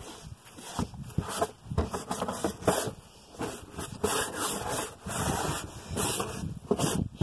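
Uneven scrubbing strokes, about two or three a second, rubbing over a car's interior surface.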